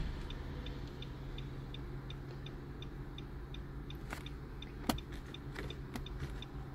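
Small, evenly spaced ticking inside a car cabin, about three ticks every two seconds, over a steady low hum. Two sharper clicks come about four and five seconds in.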